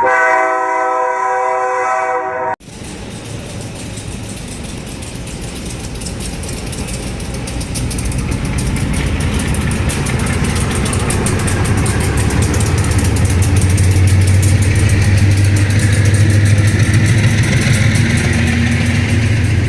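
A short chord of several steady tones, like a multi-chime horn, cuts off abruptly about two and a half seconds in. Then the GE U20-C diesel-electric locomotive, with its 12-cylinder GE 7FDL engine, approaches and passes hauling a ballast train: a low engine hum and the rumble of wheels on rail grow steadily louder toward the end.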